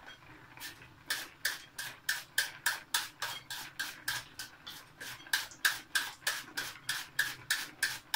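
A head of white cabbage being shredded by hand into a bowl: crisp, even cutting strokes about three a second, starting about a second in.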